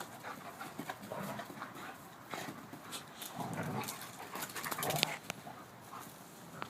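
Two German Shepherd dogs playing, panting and whimpering, with a quick run of sharp clicks and knocks about four to five seconds in.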